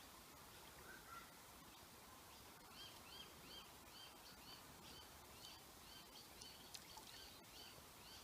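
Near silence outdoors, with a bird faintly calling over a light hiss: a run of short, high, arched chirps, about three a second, beginning about three seconds in.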